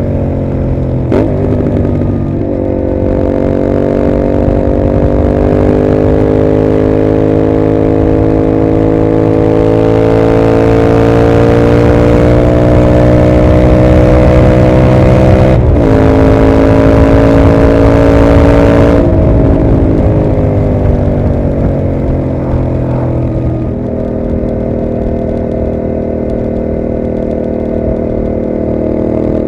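Yamaha MT-07's 689 cc parallel-twin engine running through a Mivv GP aftermarket exhaust while riding. The revs climb slowly under throttle, with a quick gear change about 16 seconds in. About 19 seconds in the throttle closes, the revs fall away, and the engine then holds steady.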